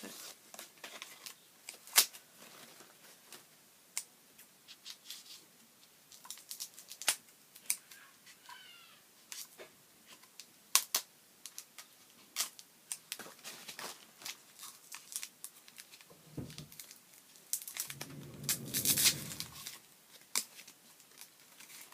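Scattered clicks and taps of small objects being handled, with a louder burst of rustling wrapping near the end.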